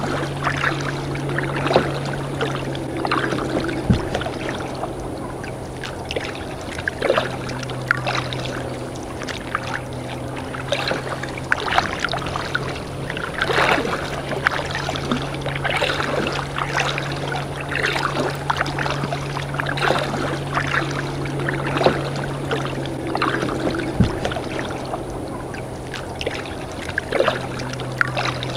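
Kayak paddle strokes dipping into calm water, with splashes and drips running off the blade every second or two, over a steady low hum.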